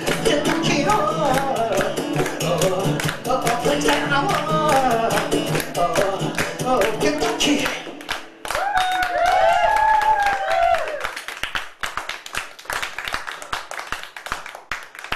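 Live music with a fast beat, pitched melody and singing. About eight seconds in, the beat and bass drop out, leaving a few sliding high notes, then scattered audience clapping.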